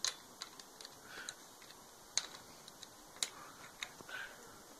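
A handful of faint, scattered metallic clicks, roughly a second apart, from a socket ratchet undoing the bolts of a Suzuki GS125's oil filter cover.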